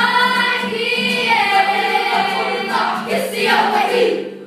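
Girls' kapa haka group singing together, a held, bending melody from many voices, which trails off near the end.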